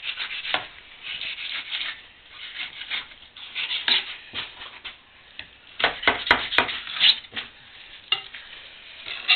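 Fillet knife scraping along the skin of a bass fillet on a plastic cleaning board as the skin is cut away from the meat: a run of short, uneven scraping strokes, with a few sharp clicks about six seconds in.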